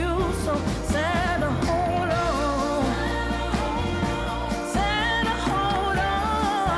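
Background pop music with a sung vocal over a steady bass and beat.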